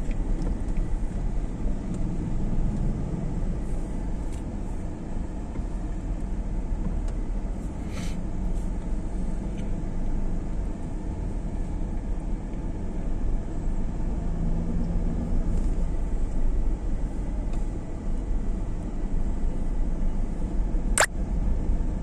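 Car engine and road noise heard from inside the cabin while driving slowly, a steady low rumble, with one sharp click about a second before the end.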